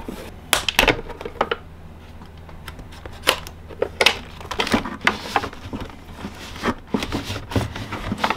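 Irregular clicks, knocks and scrapes of a plastic battery case and its taped cell pack being handled as the pack is pulled out of the case, with a quieter gap about two seconds in.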